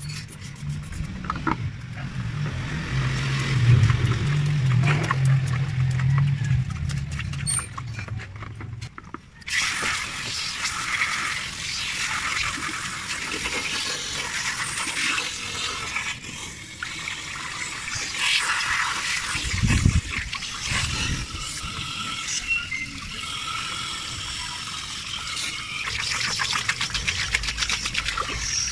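Water from a garden hose rushing through a car intercooler and splashing into a plastic basin, starting about nine seconds in. Before that there is a low steady hum.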